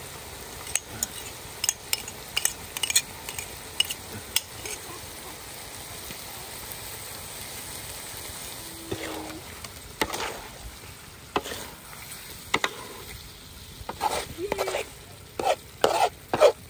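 Eels stir-frying in kroeung spice paste, sizzling steadily in a pan, while a metal utensil stirs and scrapes against it with sharp clacks in two spells, the first a second or so in and the second from about ten seconds in.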